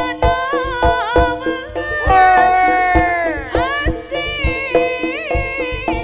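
Live Javanese jaranan gamelan music: kendang hand drums beat out a steady pattern under a wavering, ornamented melody. About two seconds in the melody holds one long note, then bends down and breaks off.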